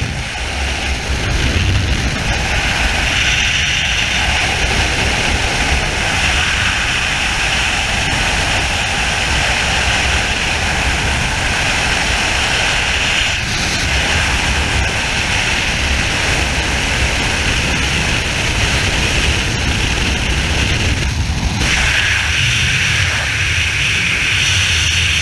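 Freefall wind noise on a helmet-mounted camera: a loud, steady rush of air that changes briefly twice as the skydiver moves.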